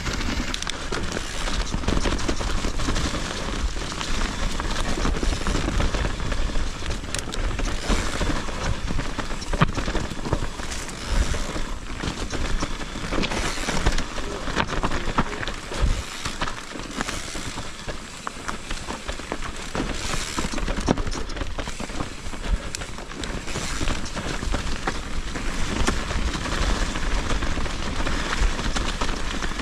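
Nukeproof Mega mountain bike riding fast down a forest trail: tyres crackling over dry leaves, dirt and small stones, with constant rattles and knocks from the bike. Wind buffets the action camera's microphone throughout.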